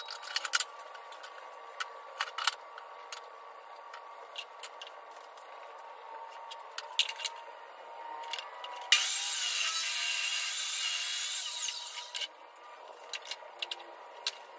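Light clicks and knocks of boards and clamps being handled, then about nine seconds in a table saw starts up and cuts a board for about three seconds before it cuts off. Light knocks of wood follow.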